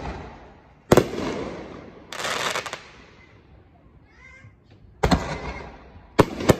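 Aerial fireworks going off: sharp shell bursts about a second in, about five seconds in and twice near the end, each trailing off slowly. A burst of dense crackling comes around two seconds in.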